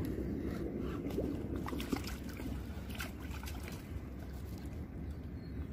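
Water sloshing and lightly splashing at the surface as a hooked crucian carp is drawn in close to the bank.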